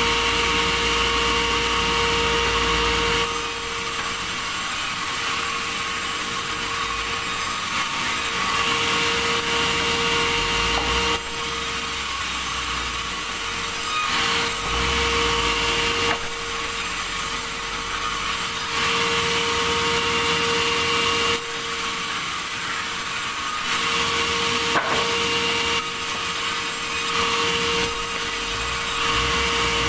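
Sawmill saw cutting timber, running continuously with a steady tone under the cutting noise, its sound shifting every few seconds.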